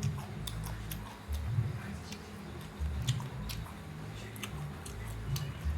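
Close-miked chewing of fried catfish and rice, a low thump with each bite and many small wet mouth clicks.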